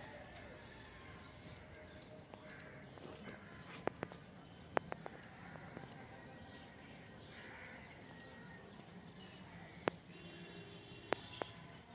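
Quiet outdoor background with a handful of sharp taps, the loudest about four, five, ten and eleven seconds in, over many short high ticks and chirps.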